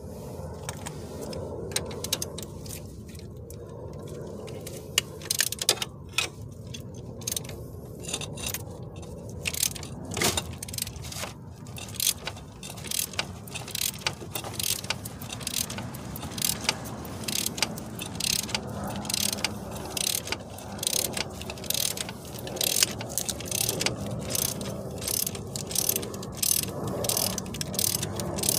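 Socket ratchet clicking in quick runs as it is swung back and forth on a nut at the bracket of a car's front strut assembly, with a few louder knocks of metal on metal.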